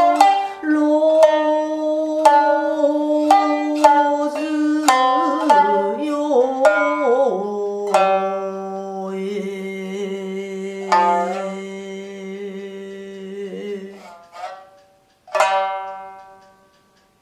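Shamisen struck with a bachi plectrum: a quick run of sharp, twangy notes with pitch slides, then slower, longer notes, ending on a single struck note that rings out and fades.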